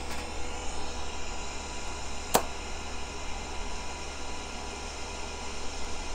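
TIG arc from a WS-250 inverter welder striking on steel angle iron with one sharp crack about two seconds in, then burning with a steady hiss and hum. The arc lights cleanly at the first try.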